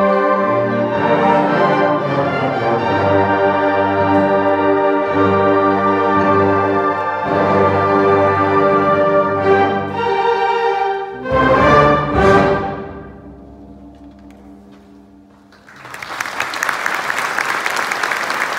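Concert band of woodwinds and brass playing the closing bars of a piece, ending about eleven seconds in on a loud final chord that rings away. After a few seconds of near quiet, the audience applauds.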